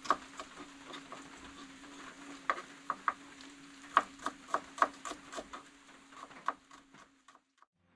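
Raindrops dripping and tapping irregularly, a few sharp taps a second, over a faint steady hum. It drops to near silence shortly before the end.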